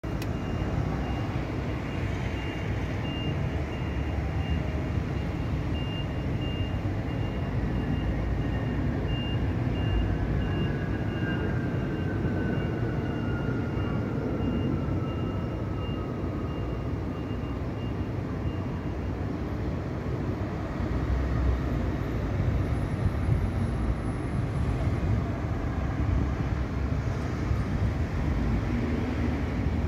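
Steady hum of distant city road traffic, with a faint repeated beeping through the first two-thirds and a slow falling whine passing over the middle.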